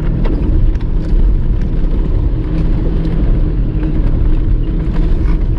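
Jeep Wrangler Unlimited driving on a rough dirt 4x4 trail: a steady low engine and tyre rumble with scattered light clicks and knocks.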